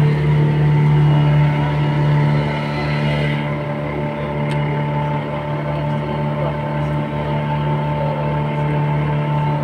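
Tour boat's engine running steadily, heard from on board: a low, even hum with a regular throb underneath.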